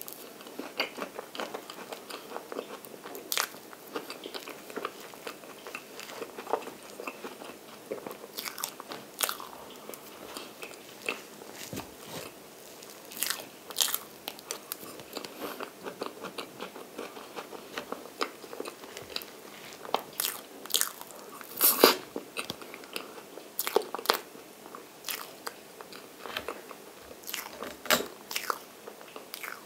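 Close-miked eating of chocolate cream cake: soft chewing and wet mouth sounds, broken by irregular sharp smacking clicks, the loudest about 22 seconds in.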